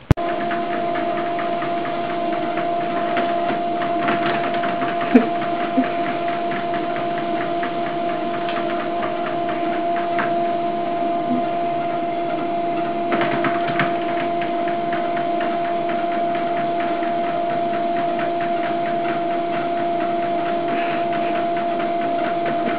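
Electric treadmill running: a steady motor whine with belt noise, holding one pitch throughout, with a few brief knocks.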